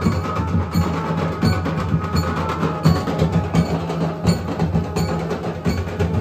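Loud percussion music with a steady beat: drums played hard, with a sharp, cracking stroke about every three-quarters of a second over a dense low drumming.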